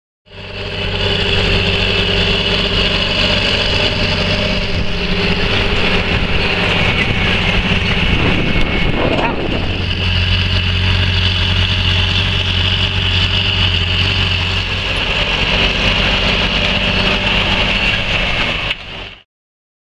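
John Deere tractor's diesel engine running steadily under load while pulling a seed drill, with a brief break in the sound about halfway through. It comes in just after the start and cuts off shortly before the end.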